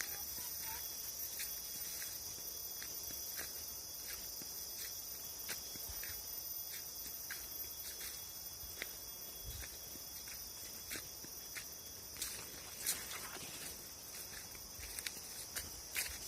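Footsteps at an even walking pace, about one step every 0.7 seconds, with a few louder steps near the end. Under them runs a steady high-pitched drone of insects.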